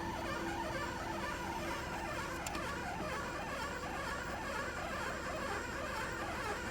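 NEC Color MultiWriter 5750C colour printer running with an abnormal noise: a continuous, rapid, scratchy chatter.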